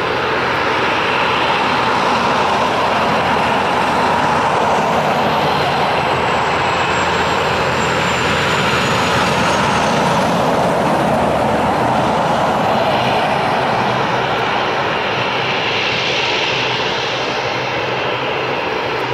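Jet engines of a UPS Airbus A300-600 freighter, General Electric CF6-80C2 turbofans, running steadily as the aircraft taxis and turns to line up on the runway, with a faint high whistle that slowly falls in pitch midway.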